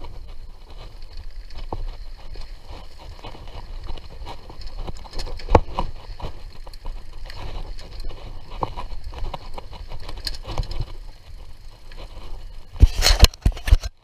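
Mountain bike riding over a dirt trail: a steady low rumble of tyres on the ground with scattered clicks and rattles from the bike over bumps, and a quick run of loud knocks about a second before the end.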